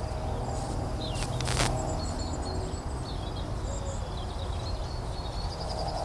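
Quiet outdoor ambience: a steady low background hum with faint, scattered bird chirps high up, and a single brief click about a second and a half in.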